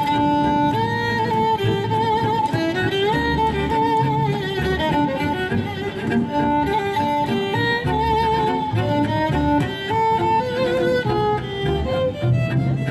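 Instrumental folk tune on two fiddles and a double bass: the fiddles play a lively melody with vibrato over plucked bass notes.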